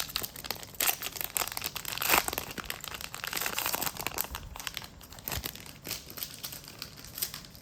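A trading-card booster pack wrapper being torn open and crinkled, a dense irregular crackling that is busiest in the middle.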